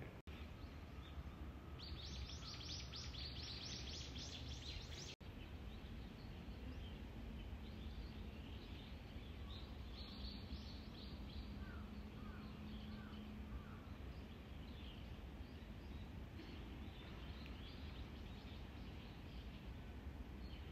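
Small birds chirping over a low, steady outdoor rumble, with a quick, dense run of high chirps a couple of seconds in and further scattered chirps later.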